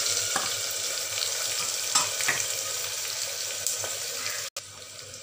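Chopped onions sizzling as they hit hot oil and whole spices in a pressure cooker: a loud, steady frying hiss with a few light clicks, dropping off sharply near the end.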